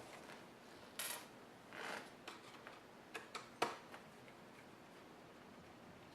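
Small screwdriver working out the screws of a laptop screen assembly: a few light clicks and short scrapes of metal and plastic, the sharpest click a little past halfway.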